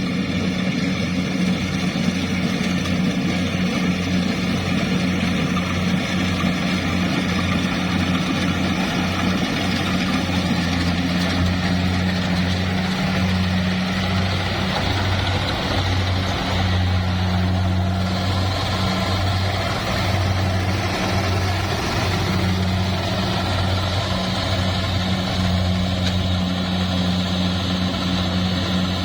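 Engine of heavy farm machinery running steadily at a constant speed, with a deep, even hum.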